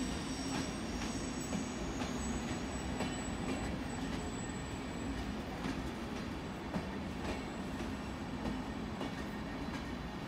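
SBB EW IV passenger coaches of a push-pull train rolling slowly past: a steady rumble of wheels on rail with occasional faint clicks over rail joints, under a steady low hum.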